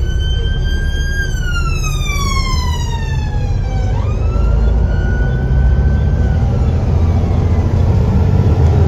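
Emergency vehicle siren wailing, heard from inside a moving bus over the bus's low engine rumble. The tone holds high, then slides down over a few seconds. About four seconds in it jumps back up, holds, then sinks and fades away.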